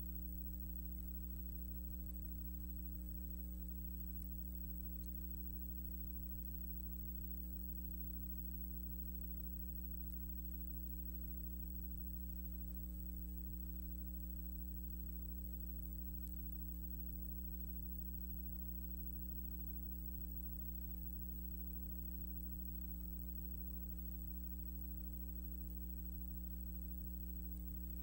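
Steady electrical mains hum with a faint high whine and hiss.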